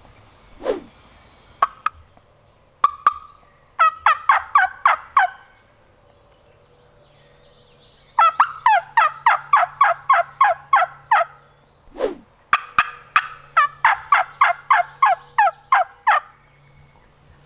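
Wild turkey hen yelping close by: a few single clucks, then three runs of yelps, a short one and two long ones of a dozen or more notes at about four a second, each note dropping in pitch.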